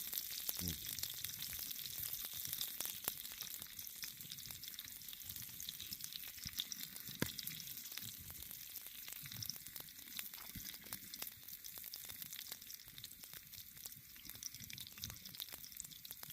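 Bacon sizzling in a pan over a campfire: a steady frying hiss with many small crackles and pops that grows gradually quieter.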